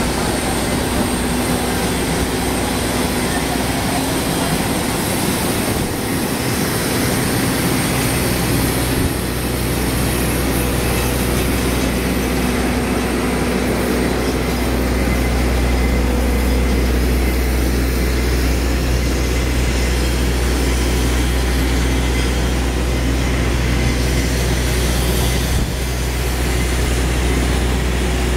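Aircraft ground power unit running steadily: a constant low hum with a few steady higher tones over it.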